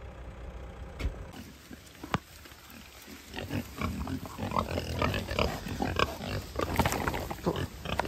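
Pigs grunting, a few at first and then a crowd of them close by, getting louder and busier from about three seconds in.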